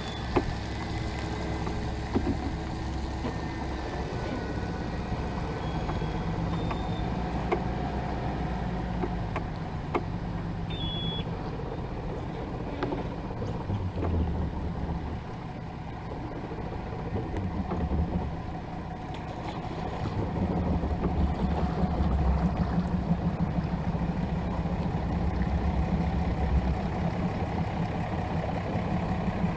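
Mercury 250 Pro XS outboard motor starting and running, with a little throttle given, after the empty fuel tank that had stopped it was refilled. It gets louder about two-thirds of the way through.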